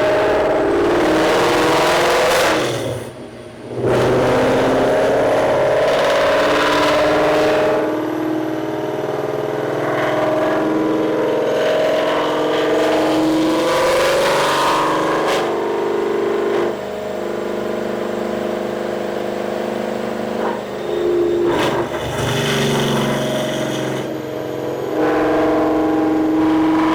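A 2019 Mustang Bullitt's 5.0-litre V8 running and revving repeatedly, its pitch climbing and falling, with a brief drop in level about three seconds in.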